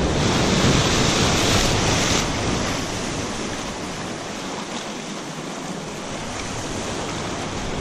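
Surf surging and breaking around concrete pier pilings, loudest in the first two seconds, then settling into a steadier wash.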